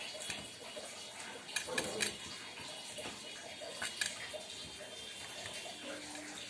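Fingers working hilsa pieces through a wet mustard and poppy-seed paste in a steel dish: soft wet squishing, with a few light clicks against the metal.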